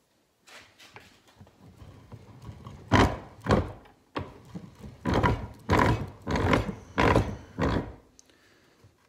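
Cast-iron bench vise being cranked to press a new trunnion bearing into an LS rocker arm: quiet handling clicks, then from about three seconds in a run of about eight heavy metal clunks, roughly two a second, as the sliding vise handle is turned.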